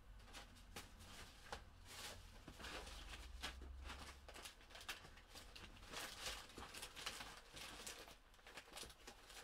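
Faint rustling and light ticking of paper and card being handled and sorted through, in scattered short bursts.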